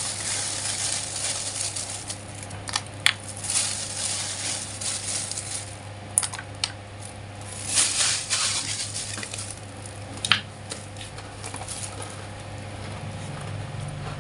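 Clear plastic bag crinkling and rustling in several spells as fried fish-ball crackers are tipped from it into a bowl of soup, with a few sharp clicks and taps. A steady low hum runs underneath.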